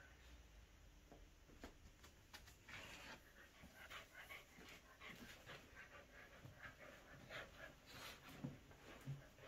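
Small Shih Tzu–Corgi mix dog panting and snuffling in short, irregular breaths as it mouths and tugs a plush toy. There are a couple of soft thumps near the end.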